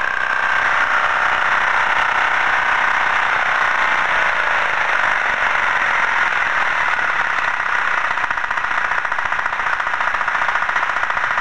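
Winsun 13 hp single-cylinder air-cooled diesel engine running on its test stand. About halfway through, its speed falls as it is throttled back, and from then on each firing stroke stands out as a fast, even diesel clatter.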